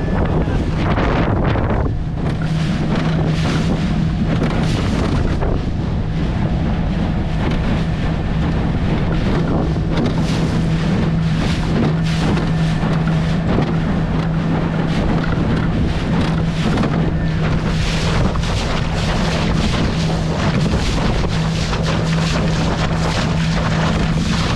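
Outboard motor of a jon boat running steadily under way, with a constant low hum, while wind buffets the microphone and water spray splashes against the hull.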